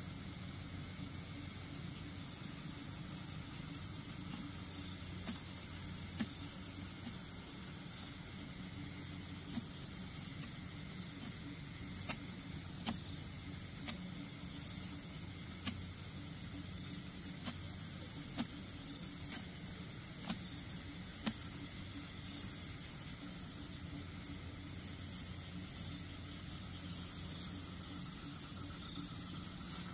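Steady high-pitched trilling of night insects, likely crickets, over a low hum, with a dozen or so faint short clicks in the middle stretch.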